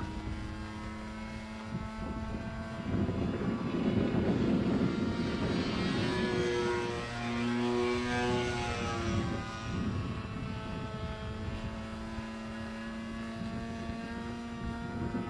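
Engine and propeller of a Zero fighter flying overhead, its steady note swelling as it passes closest a few seconds in and shifting in pitch, then fading back to a steady drone.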